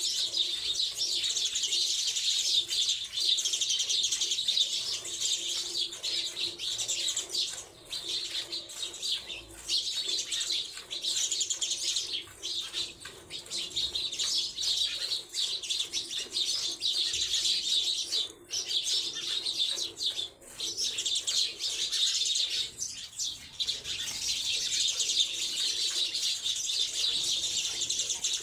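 A dense chorus of many small birds chirping and chattering without a break.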